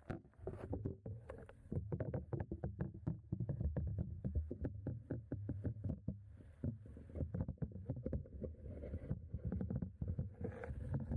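Muffled beer sloshing and bubbling, heard through a waterproof camera housing dunked in a glass blender jug: many irregular taps and clicks over a low rumble, with no steady motor tone.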